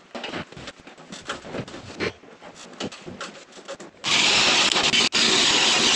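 Scattered knocks and rubbing as the wall-mounted unit is handled, then, about four seconds in, a power drill boring loudly through a wooden floor, with a brief stop about a second after it starts.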